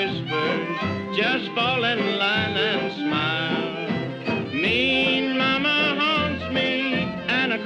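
Western swing band from a 1936 recording playing a stretch without sung words, full and steady.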